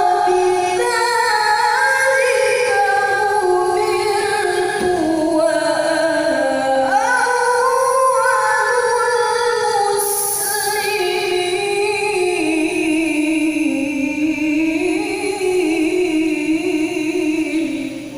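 A woman's voice reciting the Quran in a long, melodic tilawah phrase, holding and gliding between notes with ornamented turns, and trailing off near the end.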